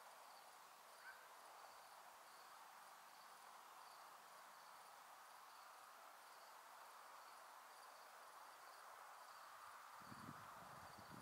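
Faint crickets chirping at a steady even rate of about two to three chirps a second over a quiet background hiss. A few low rumbles come in near the end.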